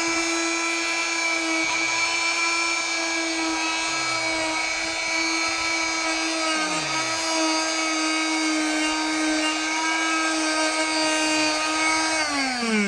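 Electric oscillating multi-tool running steadily with a buzzing whine as its blade cuts through a pumpkin. Near the end it is switched off and winds down, the pitch falling away.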